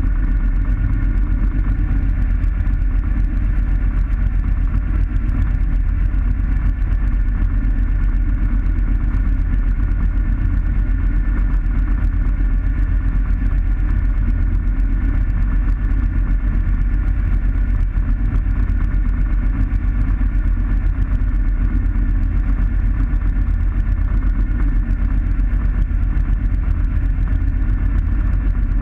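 Light aircraft's piston engine and propeller idling steadily on the ground, an even drone with a low rumble and a steady higher hum.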